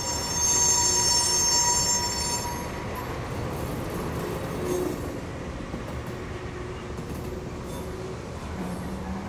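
Freight train of tank cars rolling slowly past, its steel wheels running on the rails with a steady rumble. For about the first two and a half seconds a high wheel squeal rings over it, then fades, leaving the rumble.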